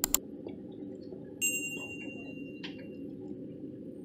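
Excavator engine running steadily as it holds a suspended load, with two sharp metal clicks at the start and a ringing metallic clink about a second and a half in that fades over about a second.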